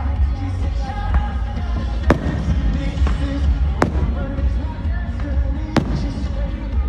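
Aerial firework shells bursting: three sharp bangs about two seconds apart, over music with singing and crowd voices.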